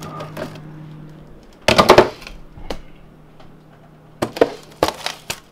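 Plastic food container with a snap-on lid clattering and clicking as it is pulled from a freezer shelf and set down on a stone countertop: a loud clatter about two seconds in, then a few sharp clicks and knocks near the end, over a steady low hum.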